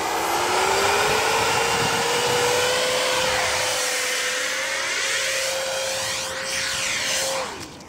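70mm electric ducted fan in a Zagi flying wing running at high power: a steady whine over a rushing of air that rises a little in pitch at first and holds. The rushing sweeps as the wing flies past. Near the end the fan spools down quickly and stops.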